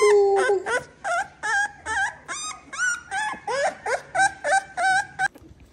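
American Pit Bull Terrier puppy whining in a rapid string of short, high-pitched cries that rise and fall, about three a second, after one longer opening cry; the cries stop abruptly near the end.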